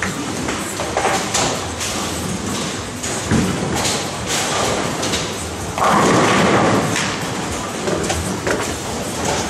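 Ten-pin bowling ball dropped onto the lane with a thump, rolling, then hitting the pins with a loud clatter about six seconds in. Knocks and clatter from other lanes run through the busy hall.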